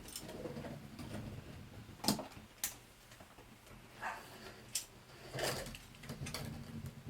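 Irregular sharp clicks and light knocks, about one a second, from hand work with a caulking gun on a window frame. A faint low steady hum runs underneath.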